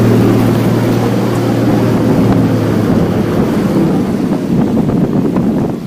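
Off-road vehicle driving through a flooded, water-filled track: the engine's steady hum with water churning and splashing around it and wind buffeting the microphone. The engine hum drops away about two seconds in, leaving the rush of water and wind.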